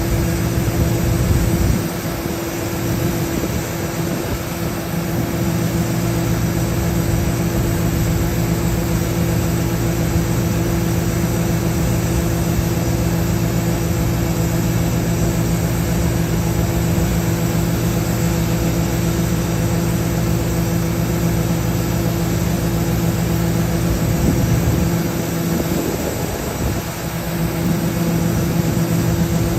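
Heavy diesel engine of large farm machinery running steadily under load, a constant hum with broad mechanical noise over it and a slight dip in loudness twice.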